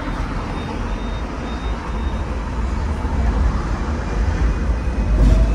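Hong Kong double-decker tram running along its tracks, heard from on board: a steady low rumble mixed with the noise of the road traffic around it, growing a little louder toward the end.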